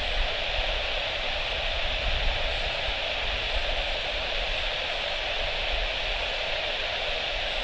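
Steady hiss of air-traffic-control radio static between transmissions, with a low rumble underneath.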